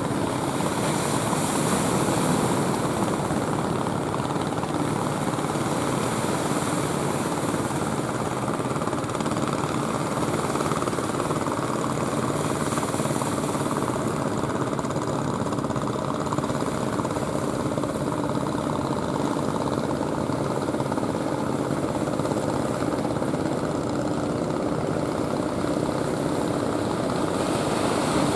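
Steady roar of ocean surf without distinct separate wave breaks, with a faint low steady hum mixed in.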